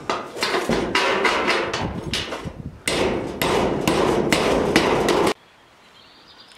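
Rapid hammer blows on a corrugated roofing sheet, about three or four strikes a second, nailing the sheet down. The hammering stops abruptly about five seconds in.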